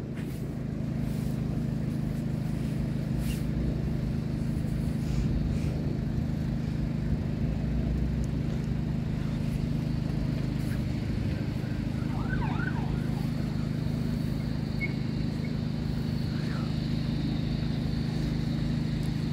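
An engine idling, a low, even hum that holds steady throughout.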